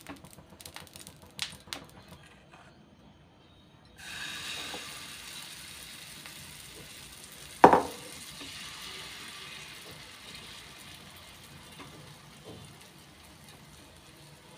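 Vegetable chilla batter sizzling as it is ladled into a hot oiled pan, starting suddenly about four seconds in and slowly dying down. Partway through, one sharp knock of the steel ladle against the pan is the loudest sound; before the sizzle, a few light taps of the brush spreading oil.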